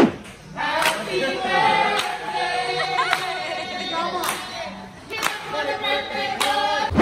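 Music with singing voices holding wavering notes over a sharp clap that falls roughly once a second.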